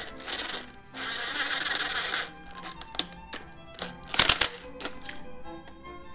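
Cordless drill/driver spinning the forcing screw of a puller on a diesel engine's front pulley in short bursts, the longest about a second. About four seconds in comes a cluster of sharp metallic knocks. String-quartet music plays underneath.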